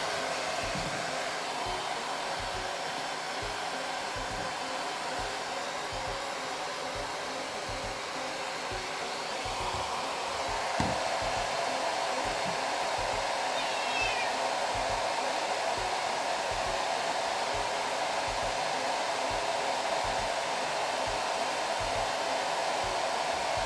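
Handheld human-use hair dryer blowing steadily while drying a shampooed cat's fur. It gets a little louder about ten seconds in, with one brief click just after.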